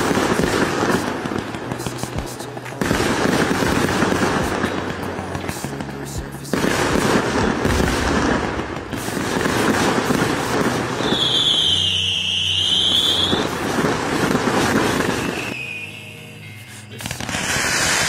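Aerial fireworks from skyshot cakes bursting and crackling in dense, continuous volleys. The sound changes abruptly at a few points, with a high whistle that dips and rises again midway, and music plays underneath.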